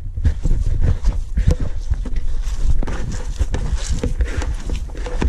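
Hands squeezing and mixing stuffing of breadcrumbs, diced salt pork and onion in a plastic bowl: a dense run of irregular thumps and crumbly scrunching, with a faint steady hum underneath.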